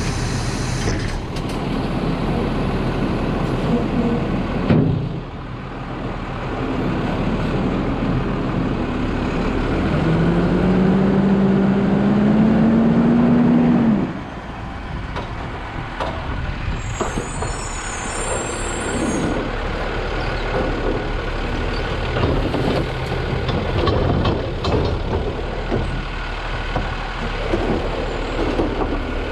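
New Way automated side-loader garbage truck running, with an air hiss dying away in the first second. Its hydraulics whine for about four seconds, rising in pitch with the engine revs, then cut off suddenly. In the second half the lift arm tips a wheeled cart over the hopper, and trash knocks and clatters down onto the futon.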